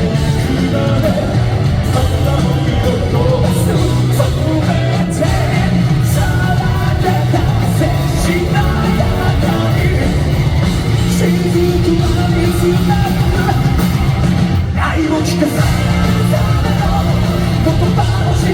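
Rock band playing live and loud, with a singer's voice over drums and electric guitars, heard from the audience.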